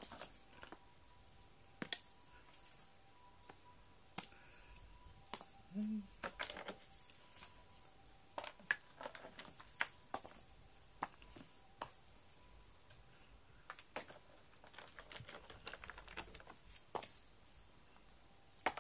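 A cat teaser toy being waved and shaken, giving short, irregular bursts of high jingling and clicking.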